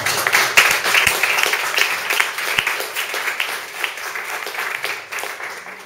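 Audience applauding: a dense patter of many hands clapping, loudest at first and dying away near the end.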